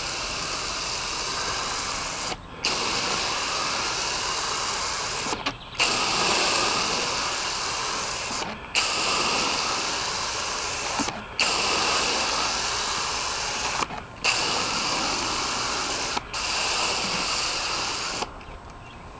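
Coil cleaning spray gun hissing as it sprays coil cleaner onto an air conditioner coil, in spurts of two to three seconds with brief pauses between, stopping shortly before the end.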